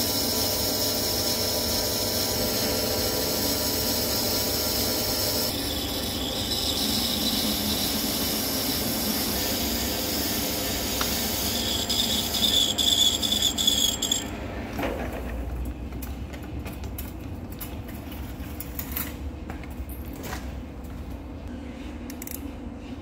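Hafco centre lathe turning a high-tensile steel piston blank, the tool cutting with a steady hiss and a faint whine. About fifteen seconds in the cutting stops, leaving a quieter low hum with scattered light clicks and taps.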